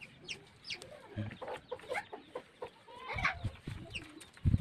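Chickens clucking in short calls, with a few dull low knocks in between; the loudest knock comes near the end.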